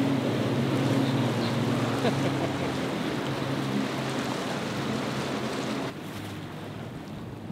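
A boat engine runs at a steady drone over the rush of churning water. About six seconds in the sound drops abruptly to a quieter engine and water.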